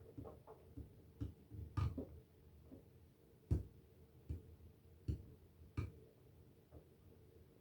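Irregular light knocks and clicks, about ten of them spread over several seconds, not in any steady rhythm; the sharpest comes about three and a half seconds in.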